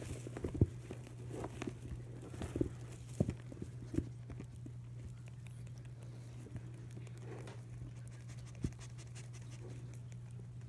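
Soft thumps, rustles and sniffing as baby Holland Lop bunnies shift about in a plastic tub and a pit bull noses among them, clustered in the first few seconds with one more thump near the end, over a steady low hum.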